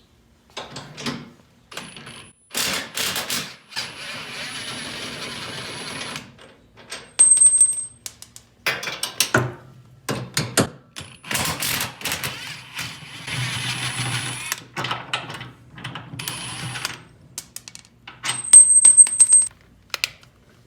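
Metal tools and frame parts clanking and clicking during repair work, with stretches of rough scraping noise and two brief high-pitched squeals, the loudest sounds, about seven and nineteen seconds in.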